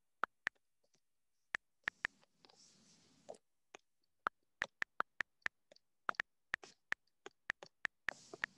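Key clicks from typing on an iPad's on-screen keyboard: a quick, irregular run of short, sharp ticks, one per key press.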